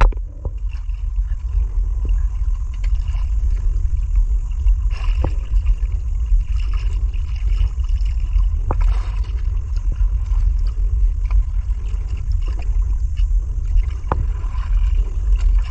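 Wind buffeting the microphone as a steady low rumble, with water washing against the hull of a small outrigger boat at sea. There are a few light knocks, around a third of the way in, past the middle and near the end.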